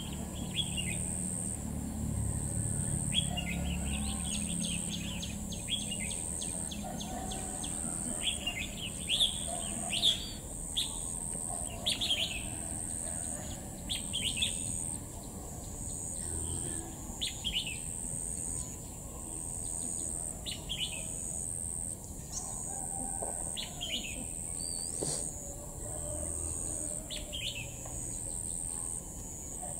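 Red-whiskered bulbul calling: short, sharp chirps repeated every second or two, with a quick run of rapid notes a few seconds in.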